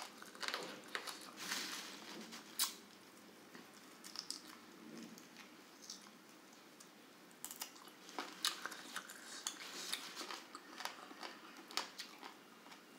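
Close-miked chewing and biting on grilled chicken eaten by hand, with scattered sharp clicks and crunches of the crispy skin and small mouth smacks. There is a quieter stretch in the middle.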